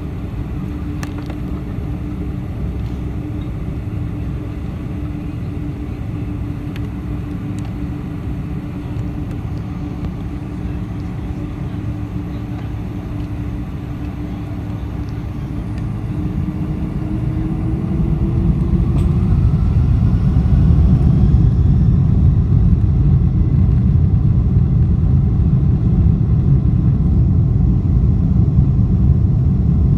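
Inside the cabin of a Boeing 747-400: the engines run at low power with a steady hum and low rumble. About 16 seconds in they spool up to takeoff thrust with a rising whine, and a much louder, steady low rumble follows as the takeoff roll begins.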